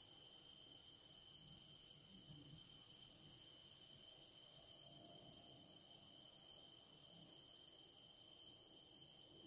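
Faint chirring of crickets at night: a steady high trill, with a still higher insect buzz that breaks off briefly about once a second.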